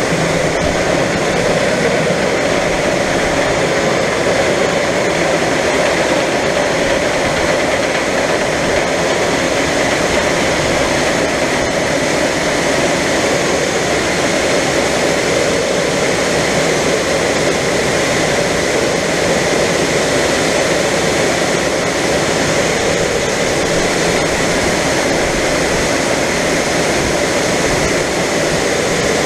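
John Deere 9570 STS combine running steadily while unloading soybeans: an even, unchanging machine drone.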